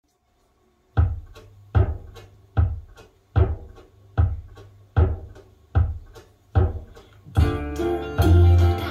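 Recorded song played back from reel-to-reel tape over floor-standing loudspeakers and picked up by a phone in the room. After about a second of silence, a plucked guitar with bass notes keeps an even beat of about five strokes every four seconds. The fuller band comes in near the end.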